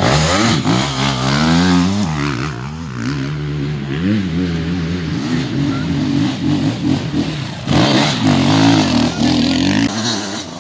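Enduro dirt bike engines revving, the pitch swinging up and down with the throttle, and louder again about eight seconds in.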